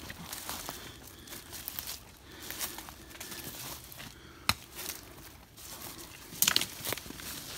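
Footsteps crunching through dry fallen leaves and brushing past bare twigs and brush. A single sharp click comes about four and a half seconds in, and a louder cluster of crunches comes near the end.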